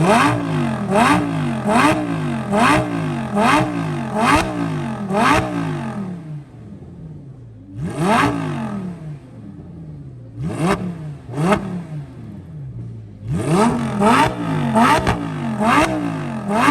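Lamborghini Gallardo V10 revved through its Borla exhaust in quick throttle blips, a little over one a second, each rising and falling in pitch. Around the middle it drops to a lower idle with a few single blips, then the rapid revving starts again.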